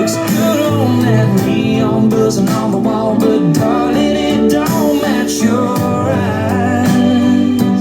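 A country song with guitar and a singing voice, played through a Harman Kardon Onyx Studio 6 Bluetooth speaker.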